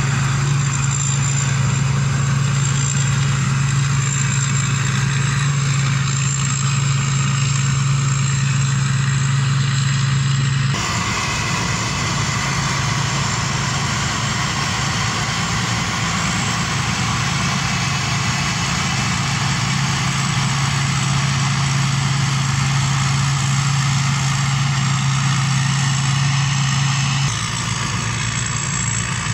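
Rice combine harvester running steadily while harvesting: a loud, even engine drone with machinery noise over it. The sound shifts abruptly about eleven seconds in and again near the end.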